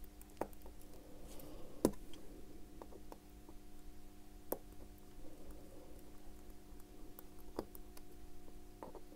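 Faint, scattered clicks and taps of small metal watchmaker's tools on a Bulova 218 tuning fork watch movement while its train bridge screws are being undone, with one sharper click about two seconds in. A faint steady hum runs underneath.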